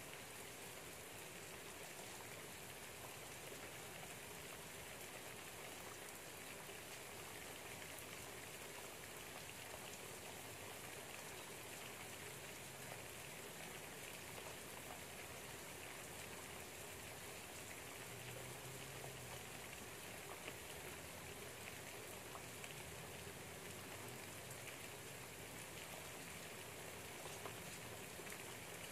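Light rain pattering steadily outside a window, faint and even, with a few scattered louder drops.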